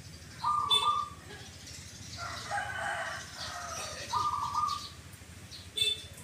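Caged zebra doves (perkutut) cooing: two short pitched coos, one about half a second in and one about four seconds in. Between them a longer, lower and busier call runs from about two seconds in. Two brief sharp chirps come just under a second in and near the end.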